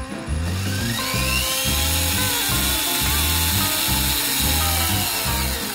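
Small brushed electric motor and plastic gearbox of a WPL D12 RC truck whirring as its wheels spin freely in the air. It rises in pitch as it spins up, holds steady, then falls away near the end. Rock music with a steady beat plays underneath.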